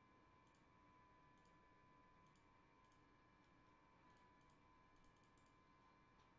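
Near silence, with faint scattered clicks of a computer mouse over a faint steady whine.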